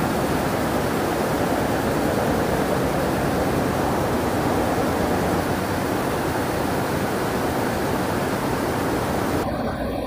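Many Picanol weaving looms running together in a weaving shed, a loud, dense, steady mechanical clatter. The highest part of the noise drops away just before the end.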